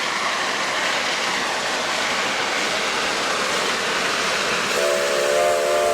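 Train running with a steady rushing noise; about a second before the end a train horn sounds a held chord of several tones.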